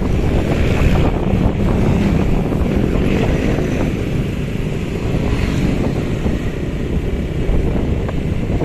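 Steady wind rumble buffeting the microphone while riding along a road, mixed with the drone of motorbike engines and traffic.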